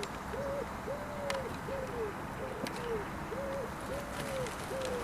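A bird calling: an unbroken series of short hooting notes, a little under two a second, each arching or falling slightly in pitch.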